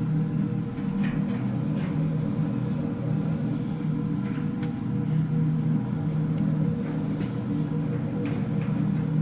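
Ship's machinery running with a steady low drone and a constant hum, with a few faint clicks scattered through it.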